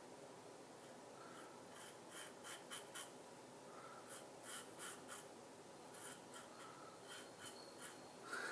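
Vintage Gillette Red Tip double-edge safety razor with a Personna blade scraping through lathered stubble on the neck, cutting across the grain. It is a faint series of short scratchy strokes in small groups.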